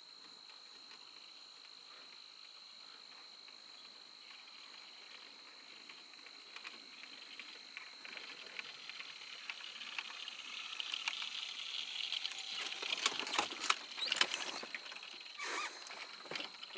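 A steady high insect drone from the marsh at dusk. About halfway in, irregular rustling and crackling starts and grows louder, loudest near the end.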